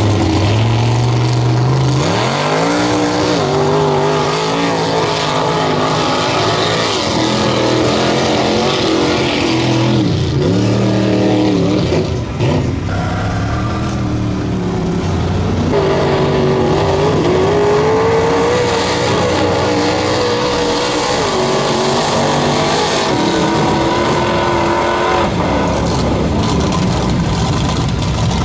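Big-tire mud-bog truck engines running loud and revving, the pitch rising and falling again and again as the trucks are driven through deep mud.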